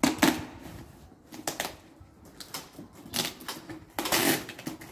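Rustling and crinkling of a bag and its wrapping being handled and pulled open: irregular short crackles with quiet gaps between them.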